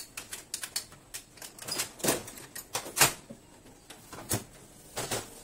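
A run of clicks and knocks of plastic and metal as a unit is pushed back into a Canon iR6570 photocopier and its front door is swung shut. The loudest knock comes about three seconds in, with two more near the end as the door closes.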